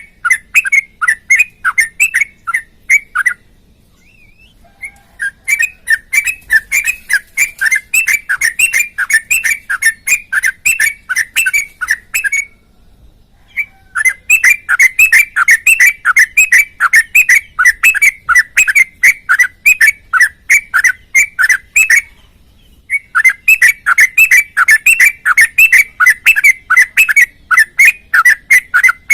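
Sooty-headed bulbul (trucukan) singing in long runs of rapid, repeated whistled notes, several a second, broken by three short pauses.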